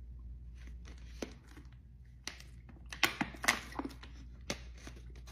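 Clear plastic wrapper crinkling as it is handled, a string of sharp crackles at uneven intervals.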